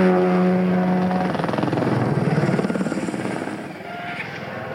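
Rally car engine running at high revs on a steady note, then dropping in pitch and climbing again about two seconds in, with a fast pulsing rasp, before fading somewhat near the end.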